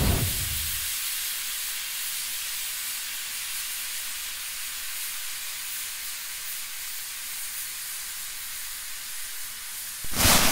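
Steady hiss of noise, mostly high-pitched, slowly fading, then a short loud burst of noise near the end.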